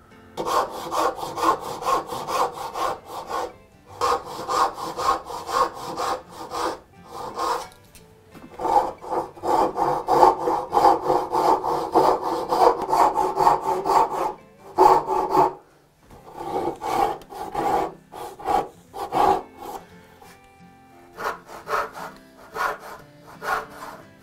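Brass-backed hand backsaw cutting through a small hardwood block, in several runs of quick rasping strokes separated by brief pauses.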